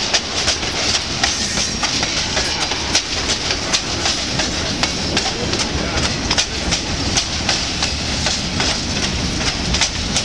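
Empty freight cars, tank cars and covered hoppers, rolling past close by: a steady rumble of steel wheels on rail, with many sharp clicks as the wheels cross rail joints.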